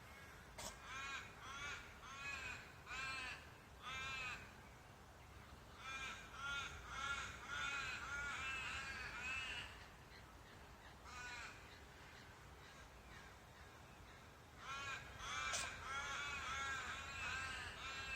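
A bird calling in bouts of short, rising-then-falling calls, two to three a second, with pauses of a few seconds between bouts.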